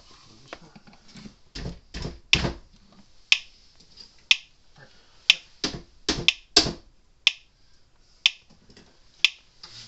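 Speedrite 980 electric fence charger pulsing after repair: a sharp click about once a second from about three seconds in, a pace that seems a little quick to the repairer. A few dull knocks from handling the unit come around two seconds in and again past the middle.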